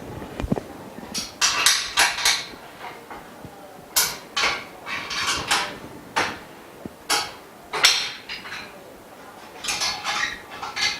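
Frame bars of a dust-free room enclosure being handled and fitted together: irregular clinks and knocks, some in quick clusters, with short quiet gaps between.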